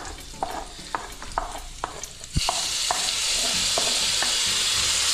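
Diced tomatoes being scraped off a wooden chopping board into a pan of frying onions: first a run of light taps and knocks from the utensil on the board, then, about halfway through, a loud sizzle starts abruptly as the tomatoes hit the hot oil and carries on steadily.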